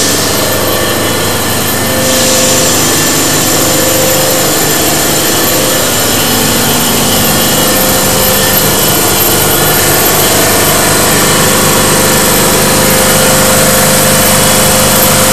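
Sauer WP4205 B3-6 gas booster, an electric-motor-driven reciprocating compressor, running steadily and loudly. A thin high whine joins in about two seconds in.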